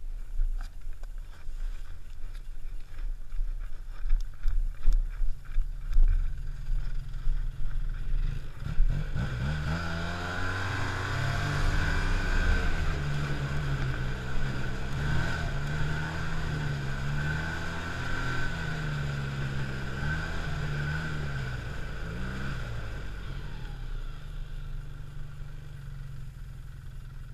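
Arctic Cat snowmobile engine running low with scattered knocks and bumps at first, then pulling away about nine seconds in. Its pitch rises and swings up and down with the throttle along the trail, with a steady high whine above it, and settles lower near the end.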